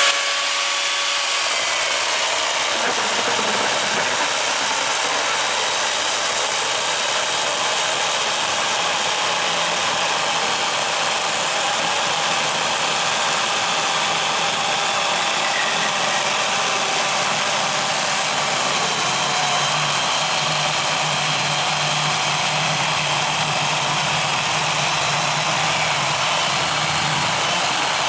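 Milwaukee M18 Fuel 18-volt battery chainsaw cutting steadily through a log, its motor running under load without a break.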